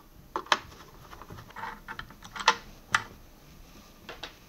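Light scattered clicks and taps of a crosshead screwdriver working the screws out of the plastic bracket that holds a wet and dry vacuum's pump, with a couple of sharper knocks as the loose parts are handled and set down on the workbench.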